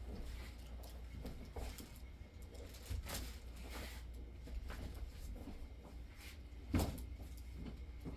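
Soft knocks and shuffles of a chiropractic session over a steady low hum, with one sharper knock about seven seconds in.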